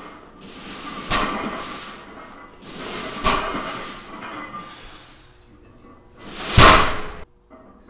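Loaded barbell's iron plates clanking against the floor and rattling during deadlift reps, about every two seconds, with a louder crash about six and a half seconds in.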